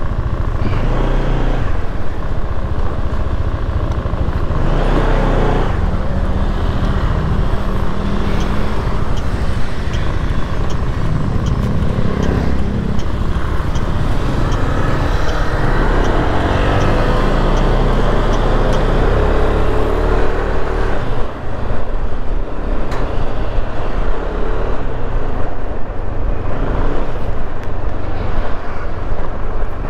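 Kymco Xciting S400i scooter running at low road speed, its engine mixed with wind rumble on the camera microphone. A run of faint, evenly spaced ticks sounds for a few seconds in the middle.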